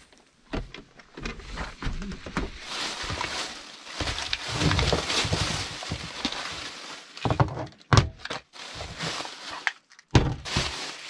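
Plastic grocery bag rustling and crinkling as food is pulled out of it, with knocks as a can, jars and a bottle are set down on a wooden counter.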